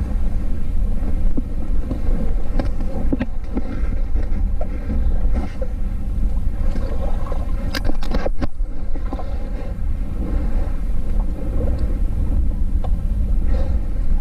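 Wind buffeting an action camera's microphone at sea, a steady low rumble, with a couple of sharp knocks a little past halfway.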